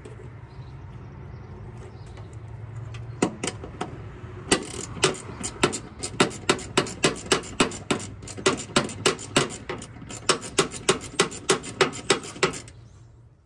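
Hand ratchet clicking in a long, even run of about three or four clicks a second as a bolt on a car battery's hold-down or terminal is turned by hand instead of with an impact gun. The clicks start about three seconds in and stop shortly before the end.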